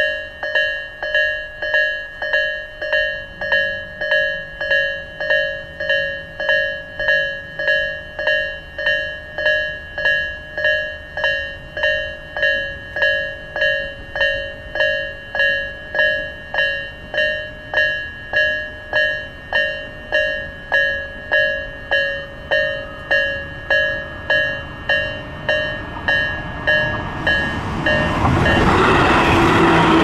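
Electronic level-crossing warning bell of the Tobu Isesaki Line, the low Isesaki-type tone in its slow version, ringing as a steady repeating ding, a little faster than once a second. From about 27 seconds in, the rumble of an approaching electric train rises and drowns the bell as the train reaches the crossing.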